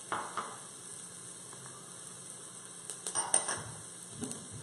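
Chopped herbs and shallots sizzling in hot olive oil in a pot, with a steady frying hiss. A spoon scrapes and clinks against the pot as it stirs, in a short cluster just after the start and a louder one about three seconds in.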